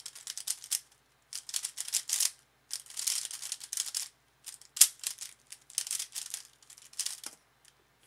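DaYan ZhanChi 3x3 speedcube turned rapidly by hand during a timed solve: fast plastic clicking and rattling as the layers snap round, in bursts with short pauses between them. The turning stops about seven seconds in as the solve ends.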